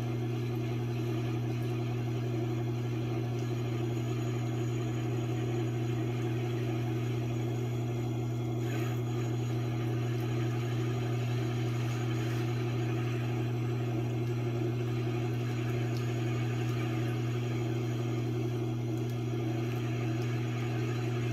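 Tormek T8 sharpener running: a steady, even motor hum as its leather honing wheel turns and an axe head's edge is stropped against it.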